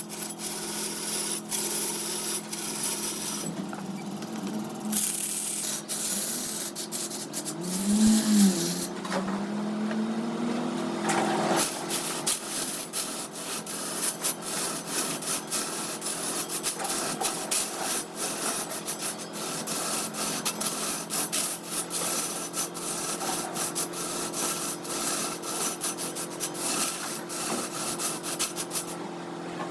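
Wood lathe running, with a hum and steady hiss as sandpaper or a tool rubs against the spinning wood, and many small ticks. About a third of the way in, the hum's pitch dips and then rises.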